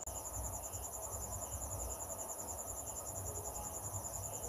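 A cricket chirping steadily in the background, a fast, even, high-pitched pulsing, over a faint low hum.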